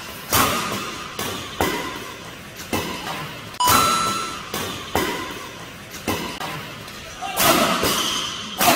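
Badminton rally: rackets striking a shuttlecock in quick exchanges of drives, about a dozen sharp hits spaced half a second to a second apart, each echoing in a large hall.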